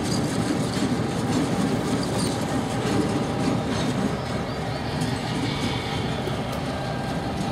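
Canadian Pacific diesel locomotive passing close by: a steady rumble of the engine, with wheels clicking over the rail joints.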